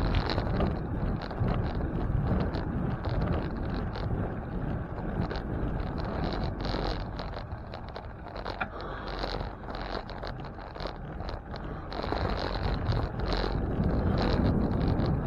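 Wind buffeting the microphone and rolling noise from a bicycle on the move, with scattered rattling clicks throughout; a little quieter for a few seconds in the middle.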